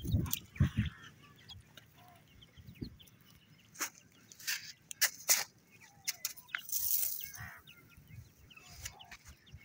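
Grey francolin chicks calling with short, soft peeps and chirps while foraging. A few low thumps come in the first second, and several sharp clicks follow in the middle.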